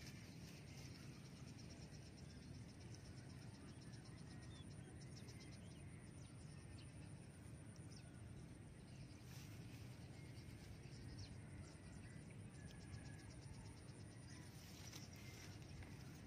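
Near silence: faint rice-field ambience with a thin steady high insect whine and faint fine ticking.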